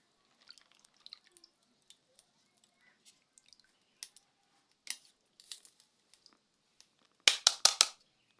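Hands sorting through dry maize kernels: scattered small clicks and rustles, then a quick run of louder sharp clicks about seven seconds in.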